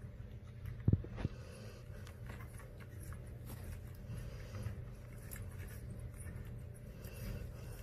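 Two-week-old Labrador retriever puppies nursing and settling to sleep against their mother: faint shuffling and suckling noises over a steady low hum, with a couple of soft knocks about a second in.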